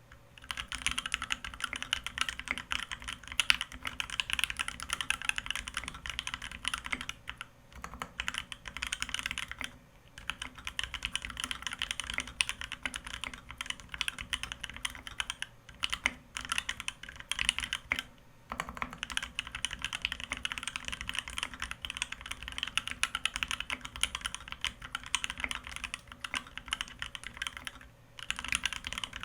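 Continuous typing on a custom Foxlab Key65 mechanical keyboard with Thic Thock Marshmallow linear switches lubed with Krytox 205, an aluminium plate and GMK keycaps: a steady stream of keystrokes broken by a few short pauses.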